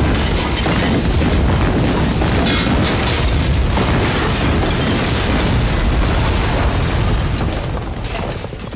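Film explosion effects: a dense, continuous blast with a heavy low rumble, easing off slightly near the end.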